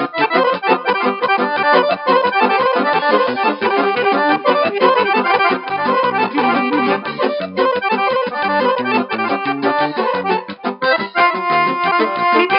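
Live band music led by an accordion playing quick running notes over a steady beat. Near the end, a single higher note is held.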